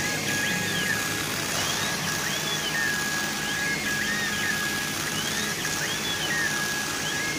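CO2 laser engraving machine at work: the head's drive motors whine in repeated rising and falling sweeps, a steady tone broken at regular intervals as the head moves back and forth, over a steady hiss.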